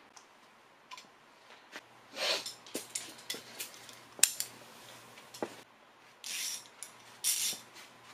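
Hand tools clinking and clicking against metal as a socket, extension and ratchet are handled during engine timing work, with a few short scraping swishes in between.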